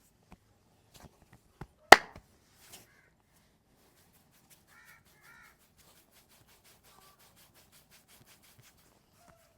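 Hands working on a person's head and neck: scattered light taps and slaps on skin, one sharp, loud crack about two seconds in, and later a quick, even run of faint taps, about six a second.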